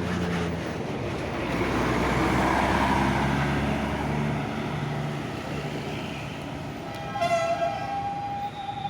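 Large diesel intercity bus pulling past, its engine loudest about two to three seconds in. About seven seconds in, a horn sounds and holds a steady note to the end.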